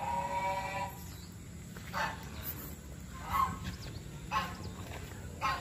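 Domestic waterfowl calling: one longer call at the start, then four short calls about a second apart.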